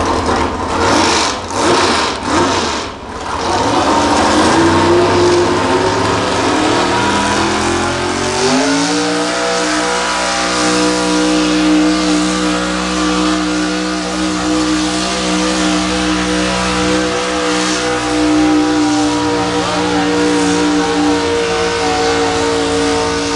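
1974 GMC pulling truck's engine revving up hard, its pitch climbing over the first several seconds, then held steady at high revs through the pull, easing slightly near the end.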